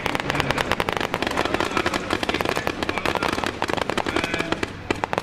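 Rapid, continuous small-arms gunfire: many overlapping shots a second, crackling without a break, easing slightly near the end.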